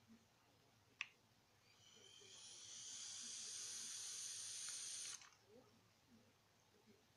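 Vape firing on a long draw through an Aspire Triton 2 sub-ohm tank on an iStick 100 W mod: a sharp click about a second in, then a high sizzling hiss that builds, holds steady for about three seconds and cuts off suddenly.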